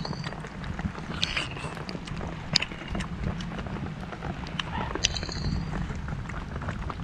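Wet chewing and lip-smacking of someone eating roasted chicken by hand, with irregular sharp smacks, over a steady low rumble of wind on the microphone.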